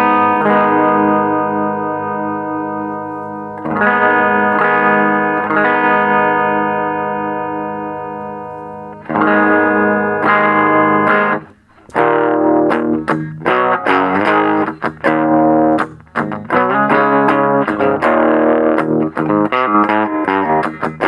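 Gibson Les Paul electric guitar played through a Marshall Origin 5C 5-watt all-tube combo (one EL84 power tube, 8-inch Celestion speaker), its tone controls set to the middle, miked in front of the speaker. Three big chords are each left to ring and fade, then from about twelve seconds in comes a choppy rhythm of short, stopped chords.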